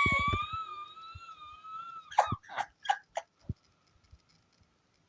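A person's high-pitched squeaky vocal note, held for about two seconds and rising slightly, followed by a few short coughs or splutters.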